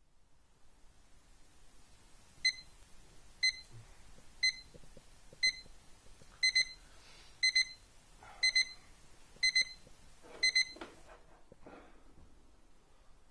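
Alarm clock beeping: single short high beeps about once a second, changing to pairs of beeps once a second, then cutting off about eleven seconds in as it is switched off.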